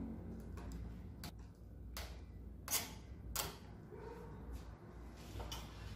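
Screwdriver and hands working on the plastic rear cover of a Bosch angle grinder as it is screwed back on: a handful of separate light clicks and taps, the two loudest around the middle.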